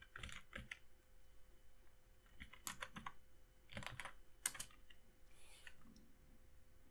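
Faint computer keyboard typing: keystrokes in three short bursts, near the start, about two and a half seconds in, and about four seconds in.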